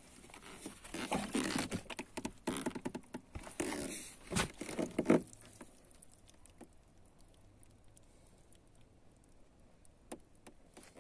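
Rustling and scuffing of a car's floor carpet and thick felt underlay being pulled back by hand, with one sharp knock about four seconds in. The second half is quiet apart from a few faint ticks.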